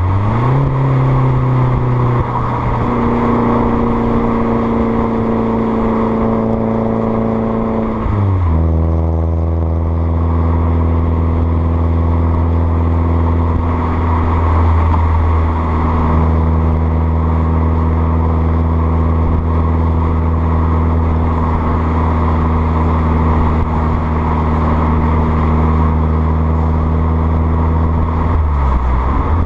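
Exhaust of an Alfa Romeo Brera S 2.2 JTS four-cylinder, heard right at the tailpipes through a stainless-steel cat-back system with the centre silencer removed and Prodrive rear boxes, on the move. The engine note dips and climbs near the start, steps down to a lower pitch about eight seconds in, holds a steady cruising drone for about twenty seconds, then falls away near the end.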